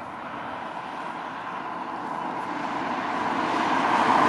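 A road vehicle approaching, its noise growing steadily louder throughout.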